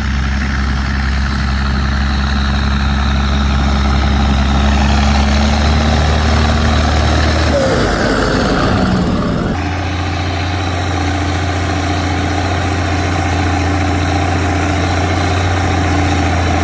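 Fendt 916 tractor's six-cylinder diesel engine running at a steady low speed. About halfway through there is a brief noisy change with a falling tone, after which the engine settles into a steady note again at a slightly different pitch.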